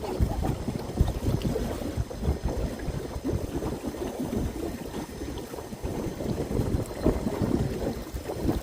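Wind buffeting the microphone on a small motorboat, with water moving along the hull, an irregular gusty rumble.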